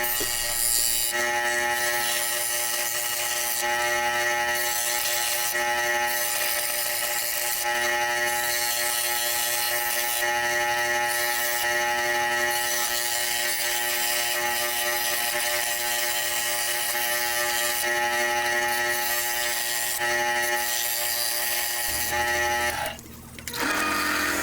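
A workshop machine's motor running steadily with a constant-pitched whine. It cuts out briefly near the end, and a sound with a different pitch starts.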